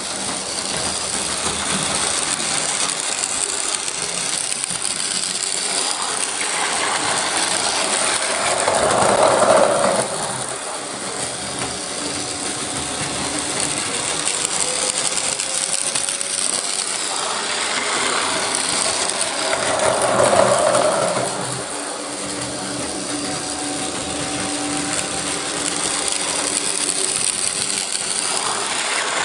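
Plarail battery-powered toy train running on plastic track, its small motor and gearbox whirring steadily, swelling louder twice, about ten seconds in and again about twenty seconds in, as it passes close by.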